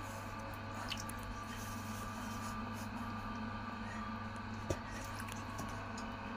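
Soft wet squelching of hands working clay on a spinning potter's wheel, over a steady low hum; one sharp click about three-quarters of the way through.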